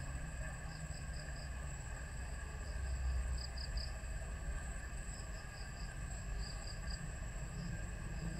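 Insects chirping in short groups of three or four quick, high pulses a few times, over a steady high-pitched hum and a continuous low rumble.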